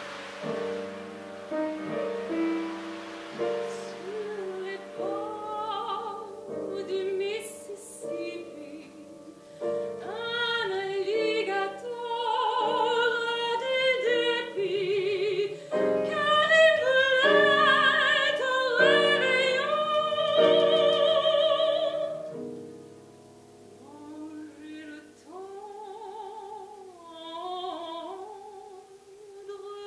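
A woman singing in a classical, operatic style with vibrato, accompanied by keyboard. The music grows loudest past the middle, dips briefly, then the singing resumes more softly.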